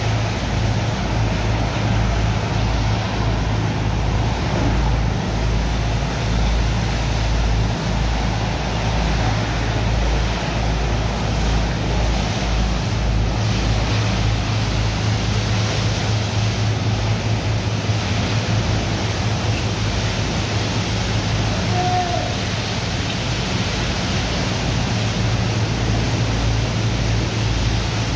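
High-pressure water jets from hoses blasting into wet sand in a barge's steel hold: a steady rushing hiss of spray, over the constant low hum of a pump engine.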